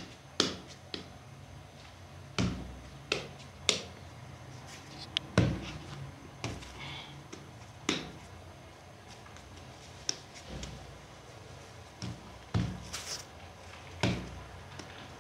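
A series of short knocks and slaps, about fifteen, irregularly spaced over a low steady hum, some dull and some sharp.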